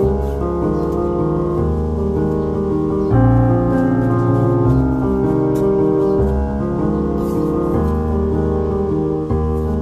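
Background piano music, slow chords over a steady bass.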